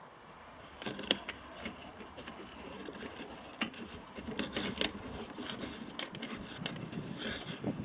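Small metal parts and hand tools being handled, with several sharp clicks over light scraping and rubbing.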